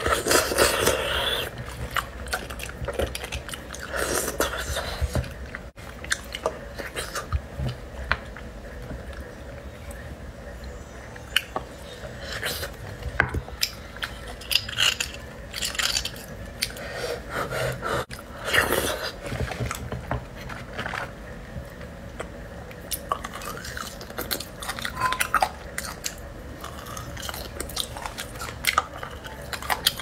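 Close-miked chewing and biting of roasted beef bone marrow, with wet mouth sounds and occasional clicks of a small metal utensil against the bone. The chewing comes in irregular bursts, a few of them louder.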